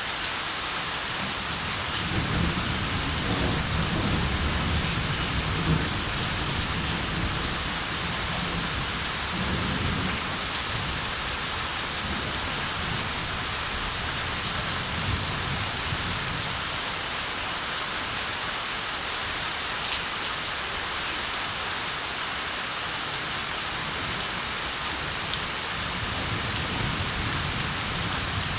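Steady rain falling, with low rolling rumbles of distant thunder, strongest from about two to ten seconds in and fainter again later.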